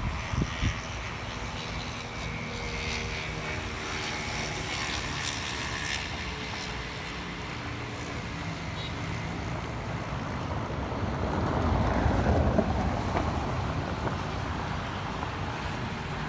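An aircraft flying over: a steady engine drone that grows louder to a peak about twelve seconds in, then eases off.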